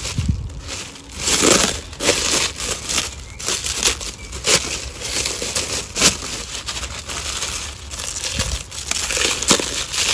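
Plastic cling film and bubble wrap crinkling and rustling in quick, irregular handfuls as it is pulled off a glass vase by hand.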